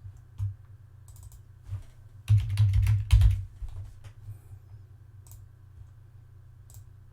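Computer keyboard typing: scattered keystrokes, with a quick run of keys about two and a half seconds in.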